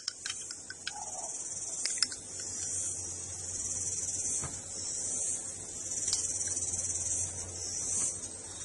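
A steady high-pitched hiss, with a few faint, scattered clicks of small plastic Lego pieces being handled.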